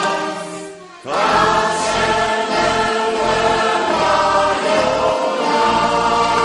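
A choir singing a Kashubian folk song. The singing fades away in the first second and a new song starts at full strength about a second in.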